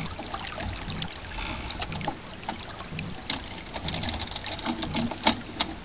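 Water splashing and slapping against the hull of an FJ 13 sailing dinghy under way, with scattered clicks and a few sharp knocks, the loudest about five seconds in.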